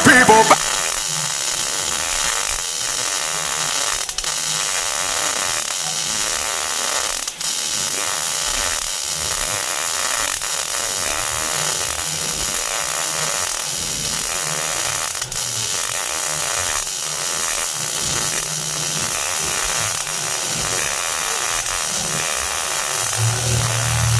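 MIG welding arc running steadily during a vertical-up weld, a continuous even hiss with a few faint ticks.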